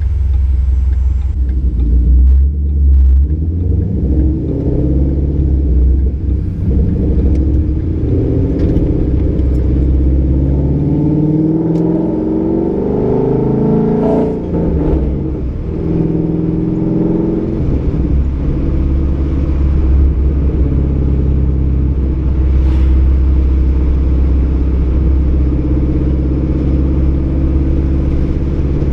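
Ford Mustang 5.0 V8 running through a Roush axle-back exhaust with an off-road X-pipe while driving. The engine note climbs and falls several times, then holds steady at cruise for the last third.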